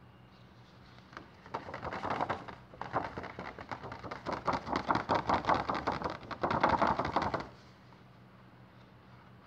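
Cloth wiping over a cardboard LP sleeve to take off dust, a dense run of quick rubbing strokes starting about a second and a half in, with a brief pause near three seconds, and stopping near the end.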